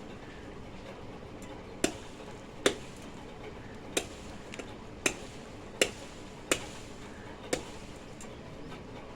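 Knife chopping into fish on a cutting surface: about seven sharp chops, roughly one a second, over a steady background hiss.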